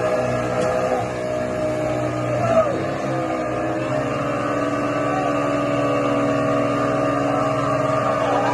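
An engine running steadily under load, its note holding even from about four seconds in.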